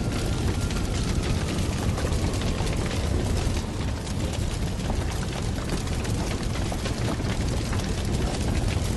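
A steady low rumbling noise full of small crackles, with no break.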